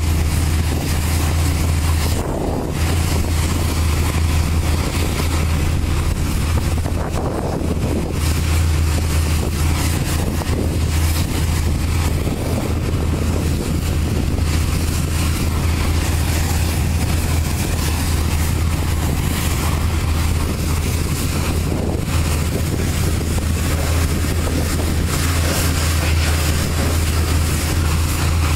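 Pressure-washer wand spraying a truck's wheels and trailer side: a steady hiss of high-pressure water over a constant low engine drone. The spray eases off briefly twice, about two and a half seconds in and around seven seconds in.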